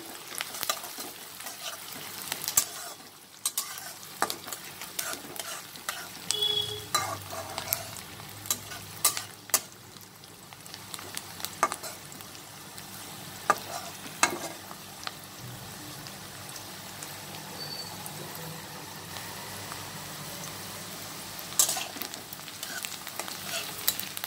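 Sliced onions sizzling in hot mustard oil in a metal kadai, lightly sautéing. A spatula stirring them makes irregular sharp clicks and scrapes against the pan over the steady hiss of the frying.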